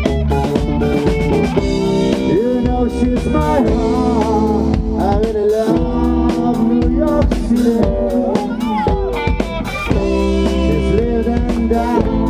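Live rock band playing: electric guitars, bass and drum kit, with a voice singing over held chords.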